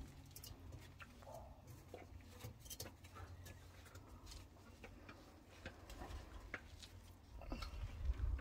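Faint rustling of mulberry leaves and branches, with scattered small clicks and ticks, as the foliage is pushed aside to reach the berries. A low handling rumble swells briefly near the end.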